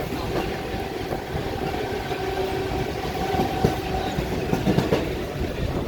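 Train running along the track: a steady rumble with a held hum, and a few sharp knocks from the wheels about four and a half to five seconds in.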